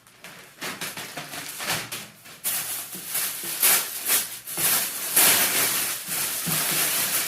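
Packaging rustling and crinkling in irregular bursts as a shirt is unwrapped and pulled out.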